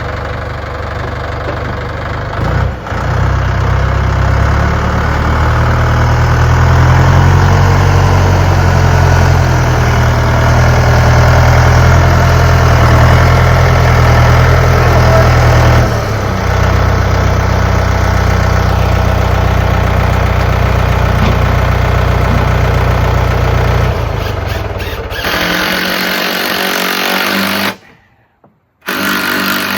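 An engine running steadily with a deep, even hum. It grows louder about three seconds in and dips briefly around the middle. Near the end the sound changes abruptly, then cuts out for about a second.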